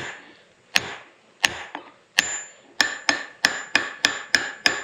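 Steel claw hammer striking a brass hammer held as a drift against the inner part of a CV joint, to knock it off the axle shaft. There are about eleven sharp metallic strikes, slow for the first two seconds and then quicker, with a high ring after each of the later blows.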